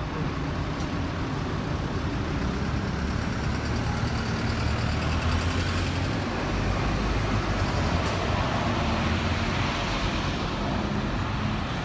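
Road traffic on a city street, with a bus engine running as the bus passes close by; a steady low hum over a haze of tyre and engine noise.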